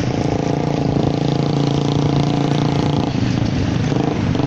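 A vehicle engine running steadily while on the move, under heavy wind and road noise, with a brief drop in engine note about three seconds in.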